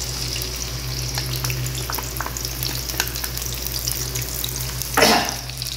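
Chopped red onions sizzling in hot oil in a frying pan just after being added, a steady hiss scattered with small pops, with a brief louder rush about five seconds in.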